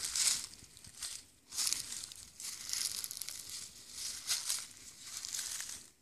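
Footsteps crunching and rustling through dry fallen leaves and twigs, in an uneven series of steps.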